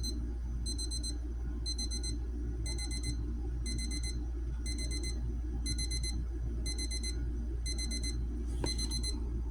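Elgin crescent-shaped digital alarm clock going off: a high-pitched electronic beep in short groups, repeating about once a second.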